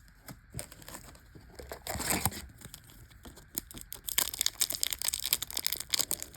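Foil booster-pack wrapper crinkling and tearing as it is worked open by hand. Scattered crackles at first, then dense, louder crinkling from about four seconds in.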